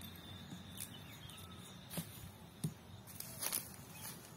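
Dull thuds of a man's arm striking a tree trunk in body-hardening practice, a makiwara-style drill: about three blows in the second half, roughly a second apart.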